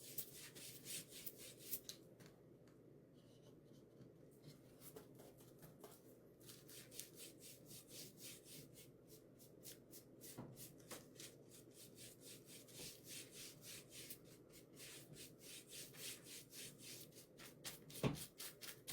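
Paint brush scrubbing paint lightly onto a wooden shelf, quick rubbing strokes at about four a second, stopping for about four seconds near the start. A soft knock near the end.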